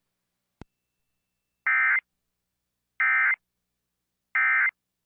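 Three short bursts of Emergency Alert System SAME digital data tones, evenly spaced about 1.3 seconds apart: the end-of-message signal that closes a severe thunderstorm warning broadcast. A faint click comes just before the first burst.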